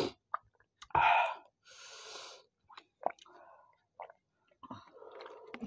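Mouth and throat sounds of people eating and drinking water: a few short clicks and smacks, and heavy breaths out through the mouth against the chilli heat of the curry.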